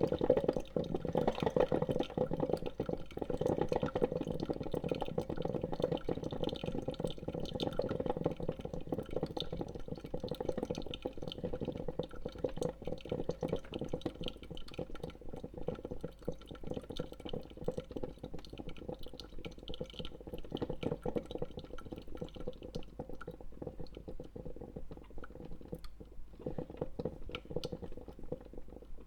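Coffee brewing: a steady dripping, liquid sound with many small crackles, slowly growing quieter.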